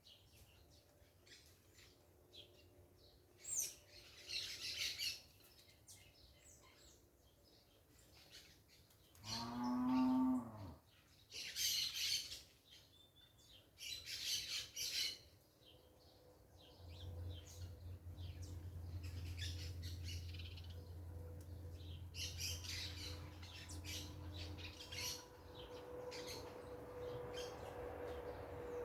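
Parakeets chattering in several short bursts of high calls. About nine seconds in, a single long moo from a cow is the loudest sound. From about the middle onward, a steady low hum runs under the birds.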